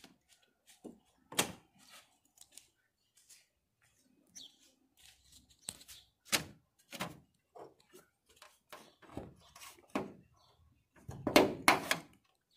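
A Volkswagen Jetta A3's hood release and hood being worked by hand: a sharp knock about a second and a half in, scattered clicks and thumps, and a loud double clunk near the end as the hood is unlatched and lifted.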